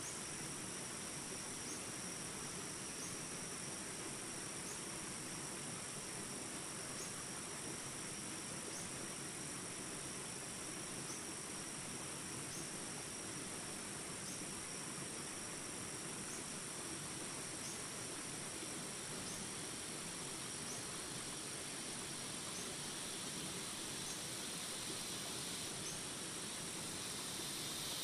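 Jungle ambience: a river running over shallow rapids as a steady rush, with insects trilling continuously at a high pitch and one short chirp repeating about every second and a half.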